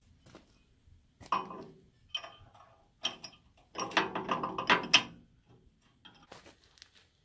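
Loose steel plow part knocking and scraping against a plow's painted steel frame as it is fitted into place: a few separate clanks, then a rapid rattling scrape lasting about a second near the middle.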